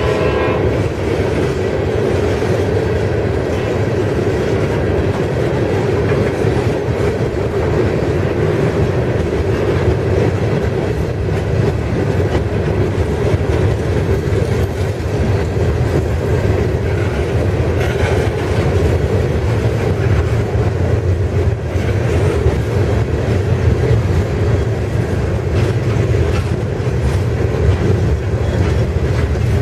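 Herzog ballast hopper cars of a freight train rolling past: a steady rumble of steel wheels on rail with a quick, continuous clicking over the rail joints.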